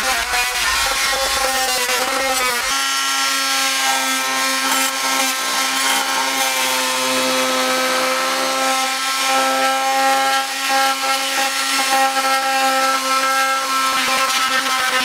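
Corded oscillating multi-tool running with a steady whine, its blade cutting along a saw line in the van's plywood floor. The sound changes character about three seconds in and then holds steady.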